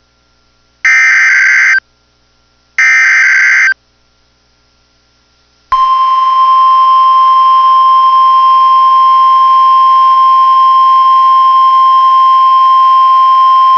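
Emergency Alert System broadcast on NOAA Weather Radio: the last two of the three SAME digital header bursts, each a harsh warbling screech about a second long with a second's gap between, then about two seconds later the steady 1050 Hz weather-radio warning alert tone, held for about nine seconds and cutting off sharply. The sequence signals the start of a Winter Storm Warning alert.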